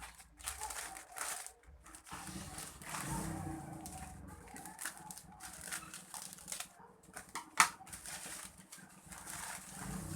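Plastic parcel packaging rustling and crinkling in irregular bursts as it is handled and torn open, with one sharp click about seven and a half seconds in.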